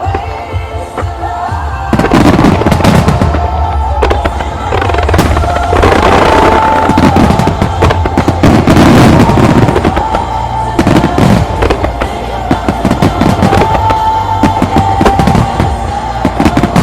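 Fireworks bursting and crackling in rapid succession over loud pop-rock music from loudspeakers. The barrage thickens about two seconds in.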